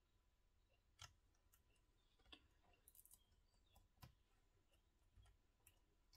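Near silence with a few faint light clicks and paper rustles, the clearest about a second in and about four seconds in: metal tweezers handling a die-cut cardstock word and picking foam adhesive pads off their sheet.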